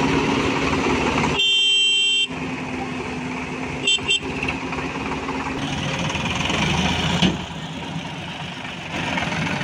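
Diesel engines of a JCB 3DX backhoe loader and a Sonalika tractor running steadily. A vehicle horn sounds for about a second near the start, and two short toots follow about four seconds in.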